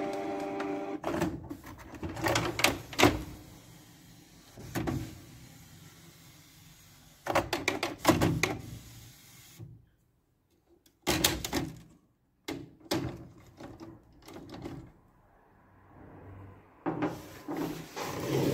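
Hard plastic clacks and knocks of a Canon Pixma G3411 inkjet printer being handled, its scanner unit lifted open to reach the cartridge carriage. The knocks come in several short clusters with quiet gaps between.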